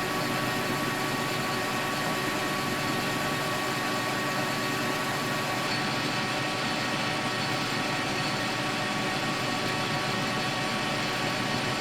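Metal lathe running steadily, facing off the end of a new workpiece.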